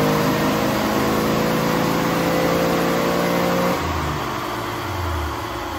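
Dodge M37's original flathead straight-six pulling under load on a chassis dyno, its pitch climbing slowly as the revs rise. About three and a half seconds in, the throttle comes off and the engine drops back to a lower rumble. By the owner's account the ignition is not firing consistently and the engine could use a tune-up.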